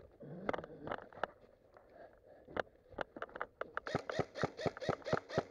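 Airsoft guns firing: scattered sharp shots, then a fast, even string of about six shots a second over the last two seconds.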